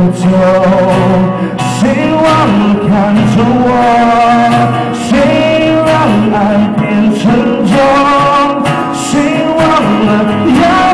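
A singer performing a song live with instrumental accompaniment, amplified through PA speakers. The voice holds long notes with pitch glides.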